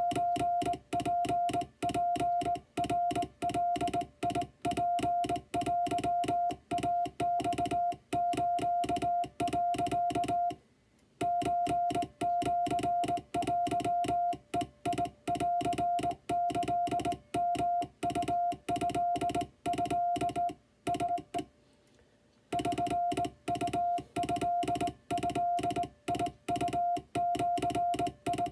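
Wabun (Japanese) Morse code sent by hand on a vertical straight key: a steady single-pitch beep keyed on and off in quick dots and dashes, with a click at each stroke. It pauses briefly twice, about a third and about three quarters of the way through.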